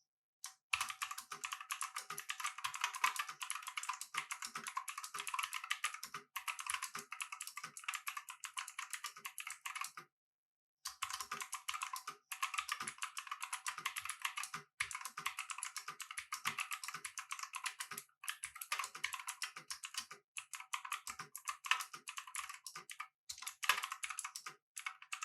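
Fast typing on a Redgear Shadow Blade mechanical keyboard with clicky blue switches: a rapid, continuous clatter of key clicks, with a brief pause about ten seconds in.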